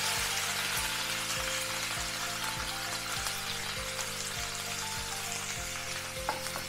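Sliced onions and green chillies sizzling steadily in hot oil in a frying pan, just after they were added. Soft background music with a steady beat plays underneath.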